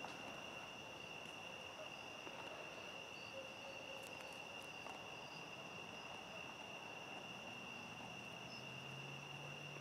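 Faint, steady high-pitched trilling of crickets in the evening, with a faint low hum coming in near the end.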